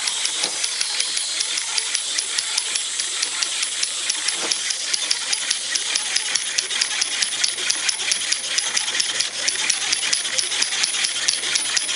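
Clockwork wind-up toys running, chiefly a cymbal-playing monkey: a steady mechanical whir with rapid, even metallic clicking and clinking of its small cymbals, about six or seven a second.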